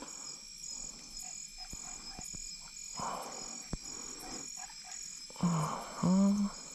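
Night chorus of insects and frogs, with a high insect trill pulsing about twice a second, a few small clicks, and two short low voice-like calls near the end.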